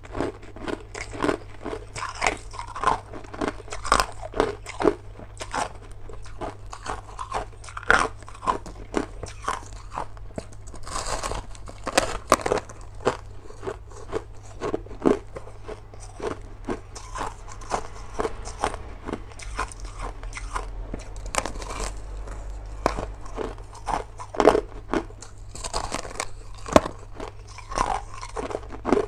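A person biting into and chewing a clump of crushed ice: an irregular run of sharp crunches and cracks.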